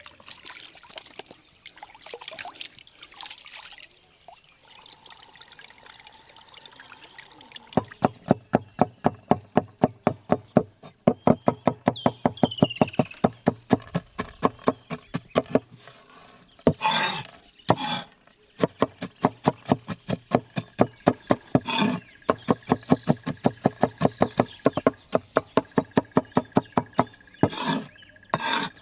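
Water pouring or trickling for the first several seconds, then fast, even knocking of about four strikes a second, with a few short, louder rushing bursts in between.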